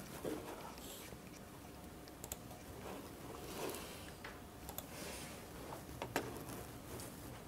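Quiet room tone with several scattered, sharp clicks from a laptop keyboard.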